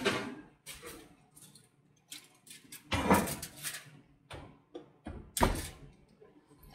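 Oven door being opened and a loaf pan pulled out: a few separate scrapes and knocks, the heaviest a thump about five and a half seconds in.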